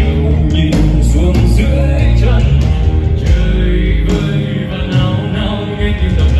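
Rock band playing with electric guitar, bass and drums; no lead vocal line is heard.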